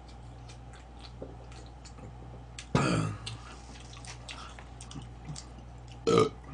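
A man burps twice after swigs of Coca-Cola: a longer burp about three seconds in and a shorter one near the end. Faint chewing and small clicks sound between them.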